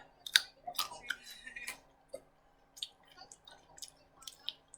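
Close-up eating noises: a scatter of small sharp clicks and soft wet smacks from chewing and mouth movements.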